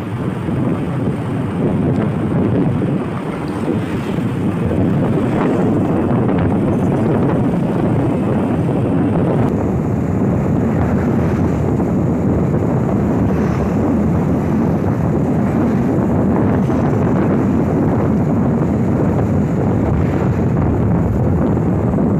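Wind buffeting the microphone over steady engine and road noise, recorded from a moving vehicle in traffic behind a bus.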